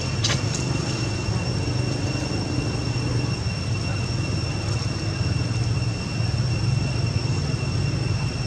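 Steady background noise: a low rumble under a constant high-pitched whine, with a short click just after the start.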